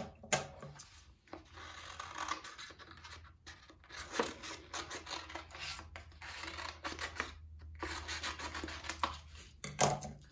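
Scissors snipping through paper in a long run of irregular cuts, with paper rustling as the sheet is turned; a single louder knock near the end.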